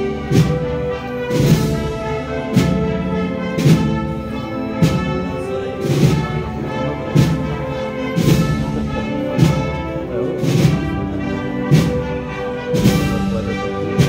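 Wind band of brass and woodwinds playing a slow processional march, held notes over a percussion stroke about once a second.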